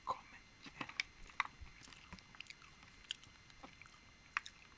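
Close-miked chewing of balut (boiled duck egg with embryo): scattered sharp mouth clicks and smacks, a few a second.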